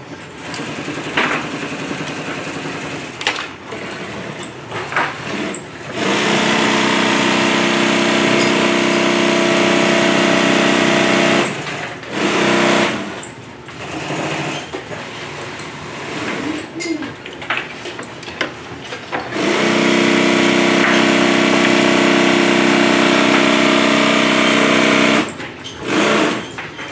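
Industrial sewing machine stitching in two long steady runs, one starting about six seconds in and one about twenty seconds in, each lasting about five seconds. Short bursts of stitching come between them and near the end, with quieter pauses of fabric handling and clicks in between.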